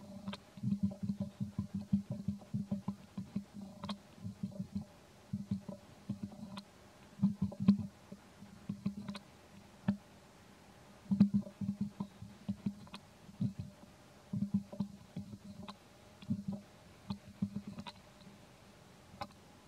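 Soft, rapid clicking and low thumping in short bursts with pauses between, from a baby monkey suckling at its mother's nipple.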